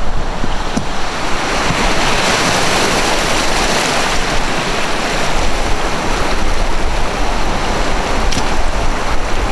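River rapids churning and rushing around an inflatable raft as it runs through a riffle of whitewater, with wind rumble on the microphone.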